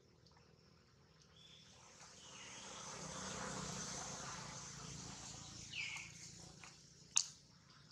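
Outdoor ambience under trees: a broad rushing noise swells up over a few seconds and fades, then a short high squeak and a sharp click near the end.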